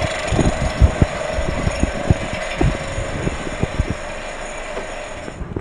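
VW Golf VI 1.4 TSI (CAXA) engine running with an irregular metallic clatter, several knocks a second, which the mechanic takes for a faulty high-pressure fuel pump. The running sound cuts off near the end.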